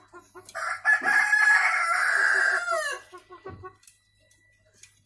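A rooster crowing once: a loud, drawn-out crow starting about half a second in and falling away in pitch near three seconds. Under and around it, a chicken clucks in a rapid, even series of about five clucks a second that stops before the end.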